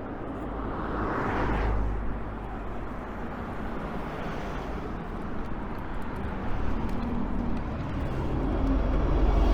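Road traffic on a town street: a vehicle passes about a second or two in, and another, heavier one draws near towards the end with a low rumble.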